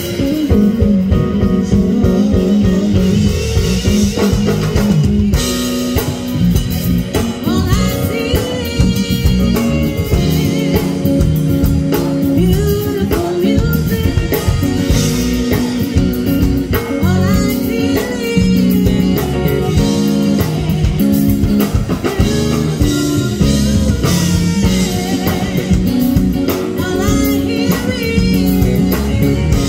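Live band playing with electric bass, drum kit, keyboards and electric guitar; a woman's lead vocal comes in about seven seconds in and carries on over the band.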